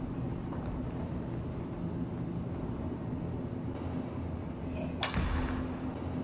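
A single sharp crack of a badminton racket striking a shuttlecock about five seconds in, ringing briefly in the large hall, over the gym's steady background hum.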